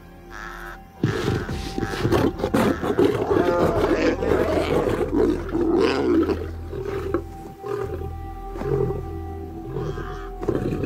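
Lions snarling and growling in a fight, starting about a second in: a lioness driving hungry cubs off her kill.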